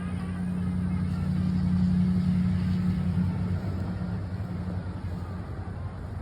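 Low, steady engine hum that swells about two seconds in and then eases off.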